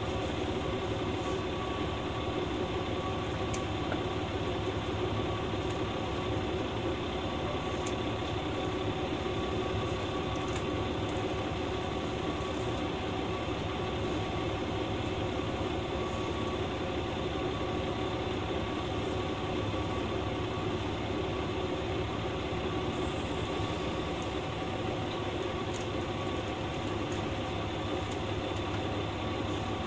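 KiHa 120 diesel railcar's engine idling steadily while the train stands at a station, heard from inside the car, with an even hum that does not change pitch.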